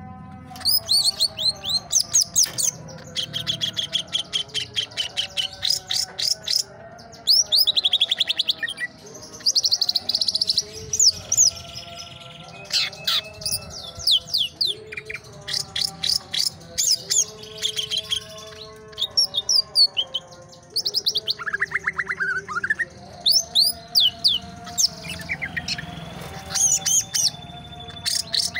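Green leafbird (cucak ijo) singing in repeated bursts of rapid, high chirps and trills with short gaps between phrases. A fainter layer of lower, steady tones runs underneath.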